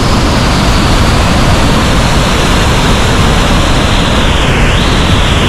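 Dam runoff rushing down a concrete spillway channel and churning into white water, a loud, steady roar of water at high spring release flow.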